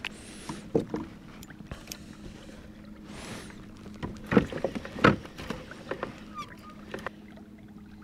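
Scattered knocks and rattles of fishing gear being handled aboard a kayak, the two loudest about four and five seconds in, over the steady hum of the Old Town Sportsman AutoPilot 120's electric trolling motor.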